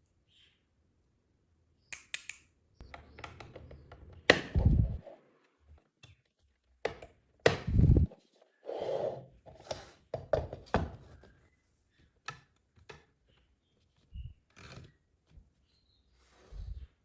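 Hands handling a mini spray fan and its packaging: a series of irregular knocks, taps and rustles with short pauses, the heaviest thuds about four and a half and eight seconds in.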